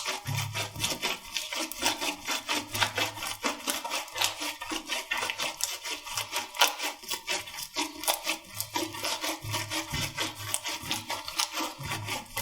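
Slime being worked by hand, giving a dense run of quick crackling clicks and soft squishes.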